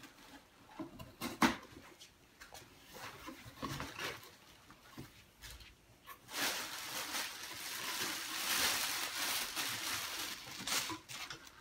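A cardboard shipping box being handled and opened, with scattered light taps and rustles. From about six seconds in there is a steady, louder crinkling rustle as clear plastic packing is pulled out of the box, fading out just before the end.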